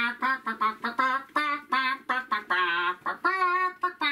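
A human voice for a rooster hand puppet singing a crow as a melody: a run of short sung notes with vibrato and two longer held notes, a crow that sounds more like singing than a real rooster.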